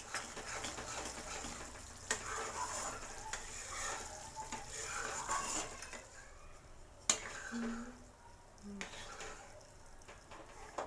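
A spatula stirring and scraping thick boiling sugar syrup in a metal kadai, with the syrup sizzling and bubbling as the ghee cooks in on its way to the golden toffee stage. A few sharp knocks of the utensil against the pan, the loudest a little after seven seconds in.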